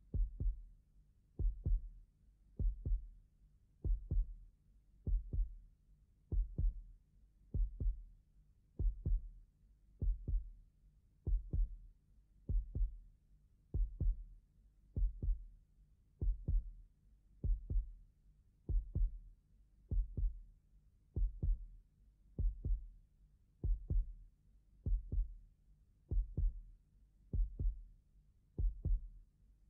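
Slow, steady heartbeat sound effect: low double thuds repeating about every second and a quarter.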